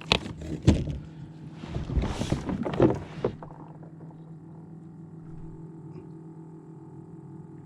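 Knocks, clicks and a short rush of noise from handling a just-landed flounder and gear in a kayak. These stop abruptly about three seconds in, leaving a low steady hum.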